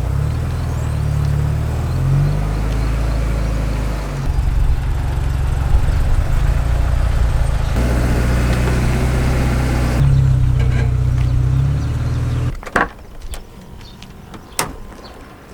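Background music with low sustained bass notes changing every few seconds, cutting off abruptly near the end; a few sharp knocks follow in a quieter background.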